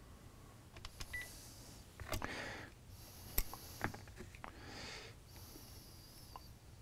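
Faint handling noise: hands rubbing and sliding over a rifle and its steel scope mount on a rubber work mat, with a few light knocks, the loudest about three and a half seconds in.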